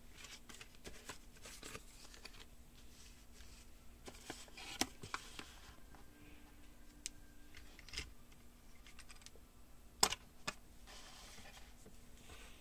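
Faint handling noise: paper and card rustling with scattered light clicks as a small plastic toy fingerboard skateboard and its sticker sheet are handled. There is a sharp click about ten seconds in, with a smaller one just after, as the skateboard is set down on its cardboard box.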